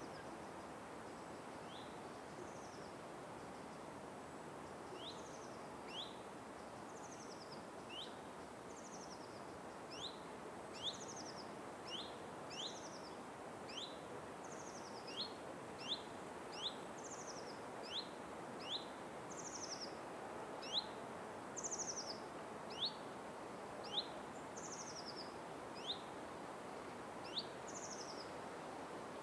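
Bird calls: short rising chirps alternating with brief high, falling buzzy notes, repeated every second or so and coming more often from about ten seconds in, over a steady background hiss.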